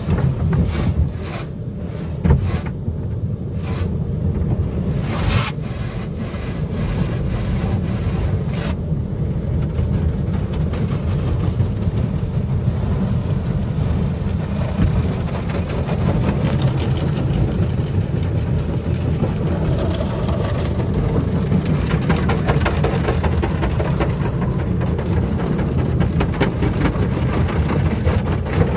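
Automatic car wash heard from inside the car cabin: a steady low rumble with water spray hitting the body and windows. Irregular sharp hits come in the first several seconds, then a denser, steady spray hiss.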